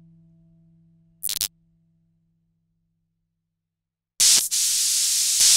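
A held low tone, the tail of the song's last note, fading away; about a second in, a brief burst of static-like hiss. After a short silence a louder, steadier burst of white-noise static starts near the end.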